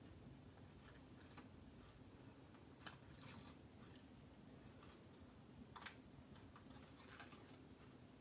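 Near silence with a few faint crinkles and clicks of paper and plastic being handled: a foam-taped cardstock shaker-card window being turned over and its adhesive backings peeled, the clearest clicks about three and six seconds in.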